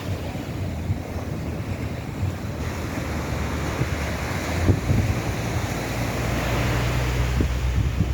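Ocean surf washing onto an open beach, with wind buffeting the microphone. The low wind rumble strengthens about halfway through, with one sharp gust.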